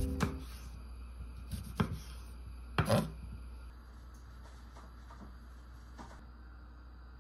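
A chef's knife striking a wooden cutting board while slicing cherry tomatoes: a few separate chops, the loudest a close pair about three seconds in, then a few faint taps.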